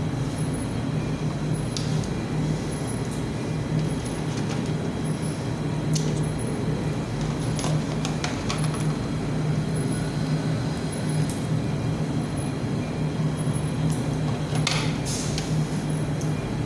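Steady low machine hum, with a few short clicks and knocks from a plastic test-kit case and small bottles being handled.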